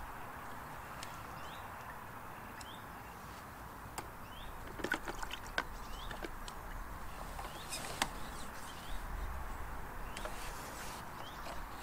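A small bird repeating a short rising chirp about once a second, over steady outdoor background noise. A few sharp clicks and taps come through the middle, the loudest at about five and eight seconds in, as the fishing pole is handled, and a low rumble comes in near the end.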